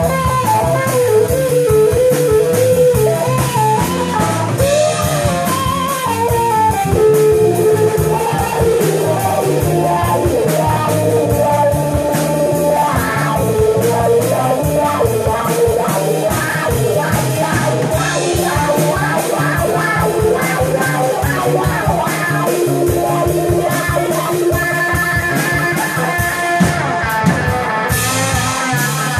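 Live band playing an instrumental blues-rock number: an electric guitar plays a lead line with bending notes over a drum kit.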